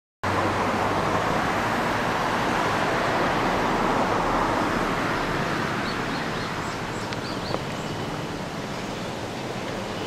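Steady outdoor rushing noise that eases slightly after about five seconds, with a few faint, short high chirps a little past the middle.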